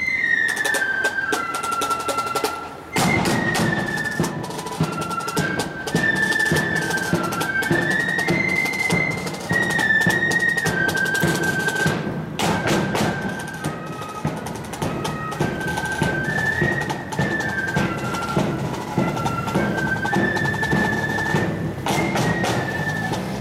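Marching flute band playing a tune: high flutes carry the melody over snare drums and bass drum. After a brief dip just before three seconds in, the full band with bass drum comes in louder.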